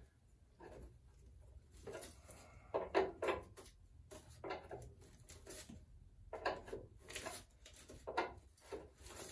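Faint, scattered crinkles, rubs and light knocks of hands working a tinfoil-lined cardboard oil chute at a motorcycle engine's oil drain.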